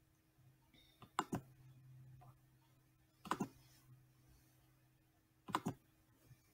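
Three computer mouse clicks, about two seconds apart, each a quick double click of press and release, over a faint steady low hum.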